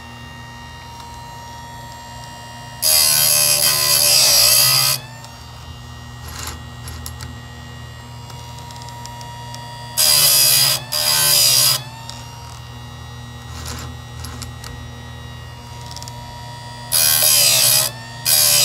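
Blumax benchtop electric chainsaw chain sharpener, its motor humming steadily after spinning up at the start. Its grinding wheel is lowered onto the chain's cutting teeth in loud, harsh grinding bursts, sharpening them one tooth at a time: one long burst about three seconds in, two short ones around ten seconds, and two more near the end.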